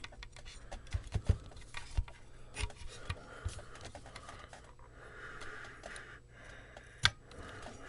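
An amplifier chassis being forced into its cabinet: scraping and rubbing with scattered small knocks, and a sharp click about seven seconds in.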